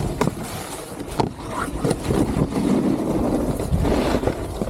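Snowboard sliding and scraping over snow, with wind buffeting the microphone and a few sharp scrapes or knocks spread through.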